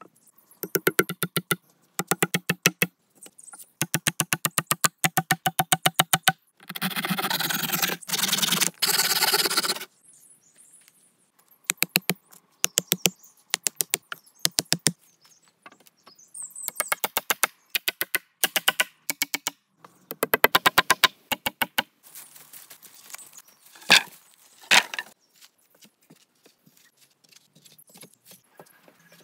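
Hatchet chopping into birch logs: quick runs of sharp wooden knocks, many strikes a second, broken by short pauses. A stretch of steady rough noise runs from about seven to ten seconds in.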